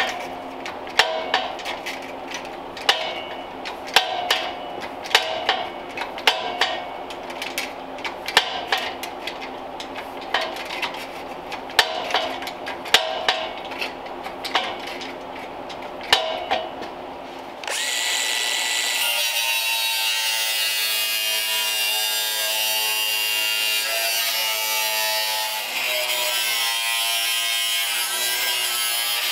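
Hand-lever metal shrinker clanking about once a second as its handle is pulled, shrinking the edge of a sheet-steel strip to curve it. About 18 seconds in it gives way to an angle grinder running steadily against sheet-steel body panel.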